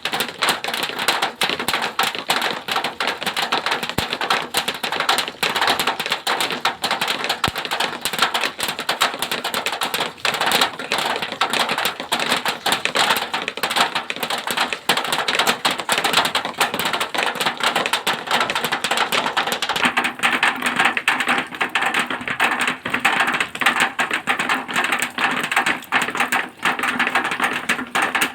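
Rain falling on zinc sheeting: a dense, steady patter of countless small drop hits on the metal.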